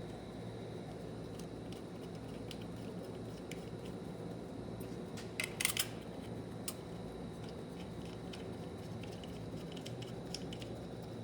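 Light clicks and taps of small metal transmission parts being handled and fitted, with a short cluster of sharper clicks about five and a half seconds in, over a steady low hum.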